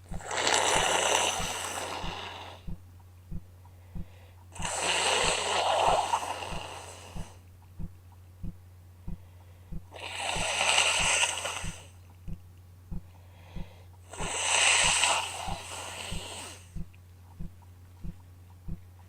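A woman with a bad cold blowing her nose four times, each blow a wet two- to three-second rush of air through a congested nose. A faint steady ticking, about one and a half ticks a second, and a low hum run underneath.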